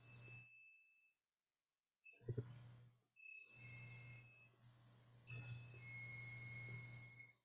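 Chimes ringing in high, overlapping tones that hang on and fade. New strikes come about two, three and five seconds in.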